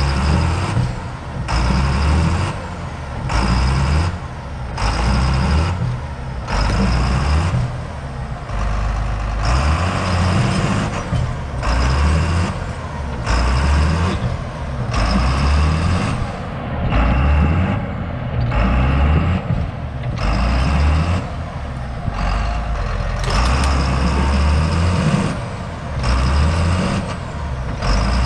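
John Deere 8200 tractor's six-cylinder diesel engine running hard under heavy load as it pulls to tear a tree stump's roots out of the ground. The engine note surges and sags every second or two.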